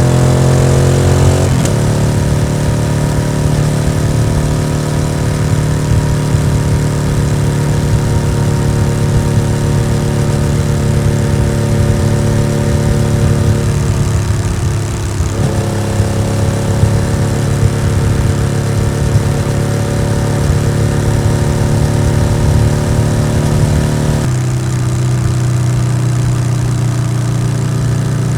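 Yamaha XSR700's 689 cc parallel-twin engine running through an aftermarket SC-Project exhaust while riding at fairly steady revs. The engine pitch shifts about 1.5 seconds in, around 15 seconds in, and again about 24 seconds in.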